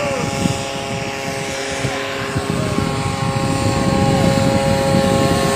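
Propeller engine of a homemade light plane built around a Kawasaki Ninja 150 RR two-stroke motorcycle engine, running steadily in flight and growing louder as the plane approaches.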